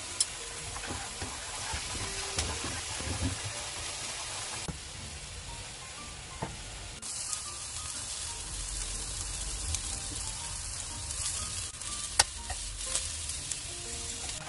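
King oyster mushroom slices sizzling as they pan-fry in oil with shredded ginger, a steady frying hiss. A tap of the cooking tongs on the pan sounds about twelve seconds in.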